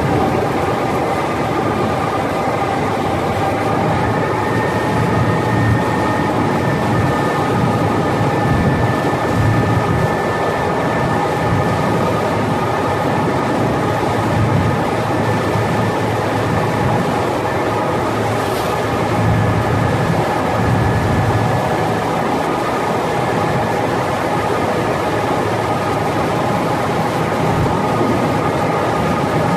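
Pilot boat's engines running steadily while it runs alongside a cruise ship's hull, mixed with rushing water churned between the two hulls. A dense, steady rumble carries several constant whining tones on top.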